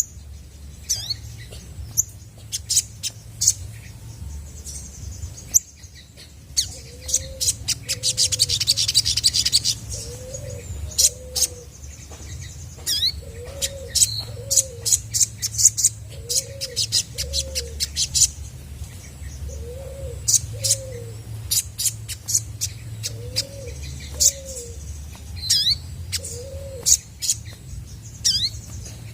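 Olive-backed sunbird calling rapidly, with sharp high chips and short downward-sweeping notes and a fast buzzing trill about eight seconds in. Underneath, a lower two-note call repeats every couple of seconds.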